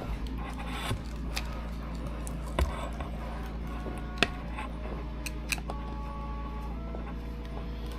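Scattered small clicks and taps of RC car parts being handled and fitted on a workbench, over a steady low hum. Near the middle come a couple of sharper knocks, followed by a few short, thin high tones.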